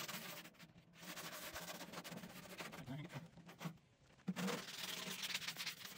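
Hard-grit sanding sponge rubbing over the rusty steel lid of a Traeger pellet grill in repeated strokes, with short breaks about a second in and around four seconds in.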